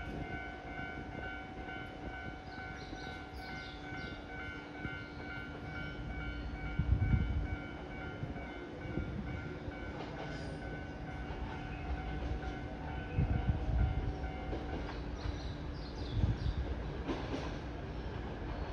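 JR East E353 series limited express electric train approaching the platform, its running rumble coming in swells and growing as it nears, over a steady high-pitched tone that stops a few seconds before the end.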